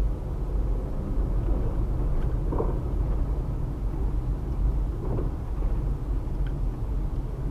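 Steady low rumble of a car driving, engine and tyre noise heard from inside the cabin, with a couple of faint brief knocks or sounds.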